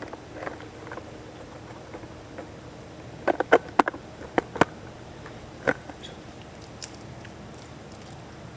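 A handful of light, sharp taps and knocks over a low steady room hiss: a quick cluster of four about three seconds in, then a few single taps spaced out after it.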